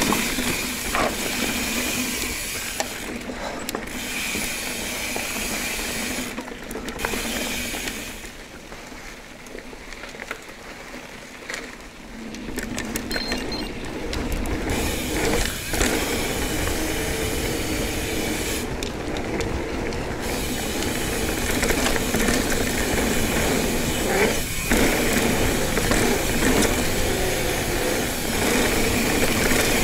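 Ibis Ripley 29er mountain bike's rear freehub ratcheting as it coasts, over the rush and rattle of the tyres rolling on a rough dirt trail. It goes quieter for a few seconds about a third of the way in, then builds up again.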